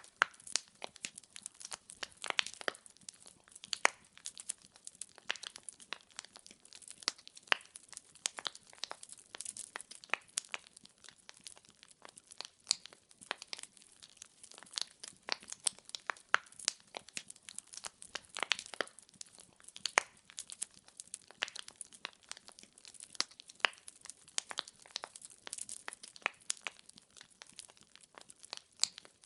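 Burning wood crackling in a fireplace: dense, irregular snaps and pops over a faint hiss of the flames.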